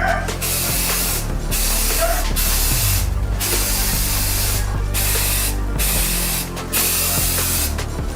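Aerosol spray paint can spraying in repeated hissing bursts of one to two seconds, with short breaks between passes.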